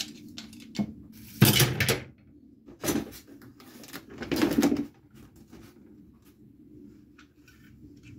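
Packaging and parts of a boxed table saw being handled: three loud scraping, rustling noises about a second and a half, three and four and a half seconds in, among light knocks and clicks.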